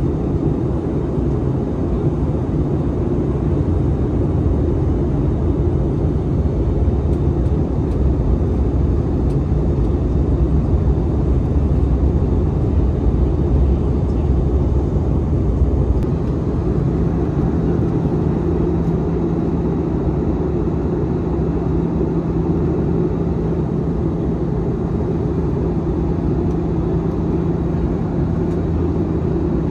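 Airbus A320 cabin noise on approach: the steady rush and rumble of its CFM56-5B engines and the airflow, heard from a window seat. About halfway through, a steady low hum joins in and holds.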